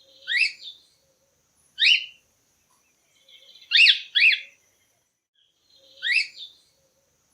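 Cockatiel calling: five short whistled calls that each sweep sharply upward in pitch. Single calls come near the start and about two seconds in, then a quick pair in the middle and one more near the end.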